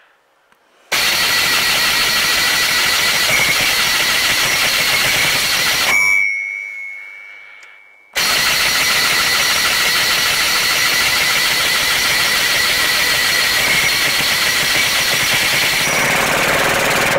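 Diesel engine of a DT-75 crawler tractor being turned over by its starter in two attempts, one of about five seconds and one of about nine, each starting and stopping abruptly. It does not start.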